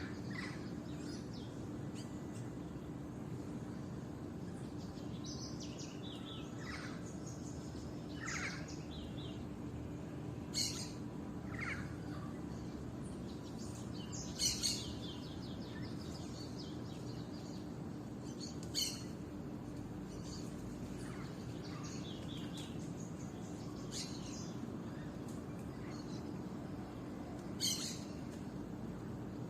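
Wild birds calling in short, scattered chirps and whistles, a few of them sharp and loud, over a steady low background rumble with a faint hum.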